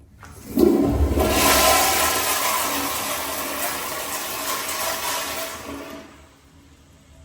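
American Standard Afwall commercial toilet flushing: a click, then a loud rush of water that slowly eases off over about five seconds and stops.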